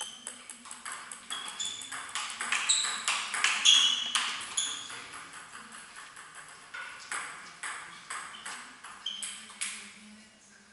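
Table tennis rally: the plastic ball clicking sharply off the rackets and the table in quick succession, two to three hits a second, with a few short high squeaks among them. The hits are loudest in the middle and thin out near the end.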